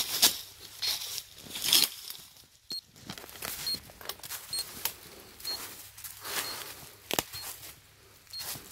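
Footsteps crunching through dry leaf litter, about one step a second. A short high beep repeats about once a second behind them.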